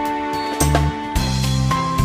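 Background music: a melody of held notes over a bass line that changes about every half second, with a steady beat.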